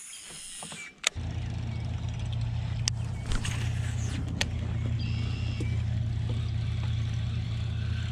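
A steady low mechanical hum, like a small motor running, starts abruptly about a second in and holds even, with a few sharp clicks over it.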